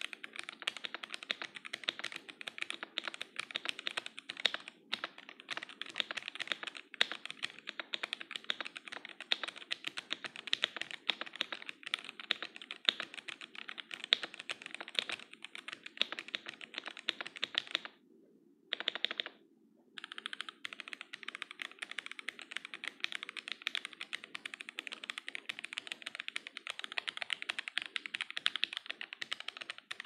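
Fast, continuous typing on a mechanical keyboard with Gateron Yellow linear switches, thick PBT Cherry-profile keycaps and a stacked acrylic case: a dense stream of key clacks that stops twice, briefly, about three-fifths of the way through.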